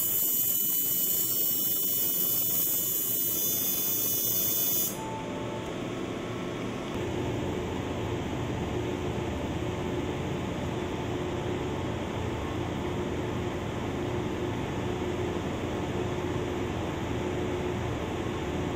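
LASIK laser system firing: a loud, high hiss with a fine buzzing tone that stops abruptly about five seconds in. A steady hum of equipment and ventilation follows.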